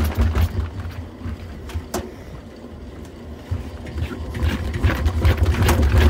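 Stainless drum of a front-loading washing machine spun by hand, whirring with a low rumble as it turns. The sound dies down for a couple of seconds, with a single click about 2 s in, then builds up again near the end as the drum is spun faster.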